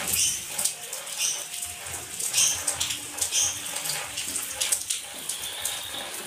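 Rain falling and running off onto wet concrete: a steady hiss of water with frequent sharp splashes and drips.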